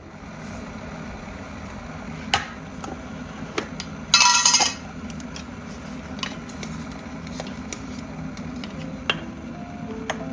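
Dishes and utensils clinking and knocking, with one louder ringing clatter about four seconds in, over a steady low hum.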